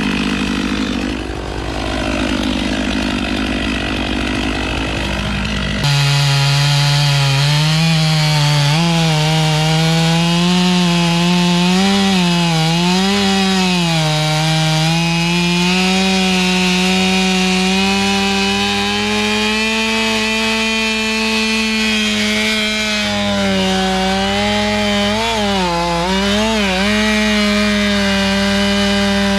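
Stihl 500i two-stroke chainsaw running at full throttle through a large oak trunk, its pitch dipping and recovering again and again as the bar loads up in the cut. About six seconds in the sound changes abruptly to a louder, clearer saw tone.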